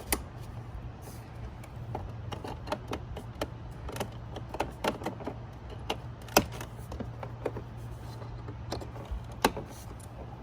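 Scattered clicks, taps and knocks of hands working plastic wiring connectors and door-trim parts, the two loudest sharp clicks about six and nine and a half seconds in, over a steady low hum.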